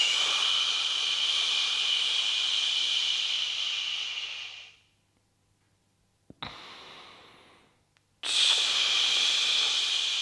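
A man breathing out slowly and forcefully through his mouth as a breathing exercise: a long, steady hiss of about five seconds. After a pause and a brief, quieter breath, a second long exhale starts about eight seconds in.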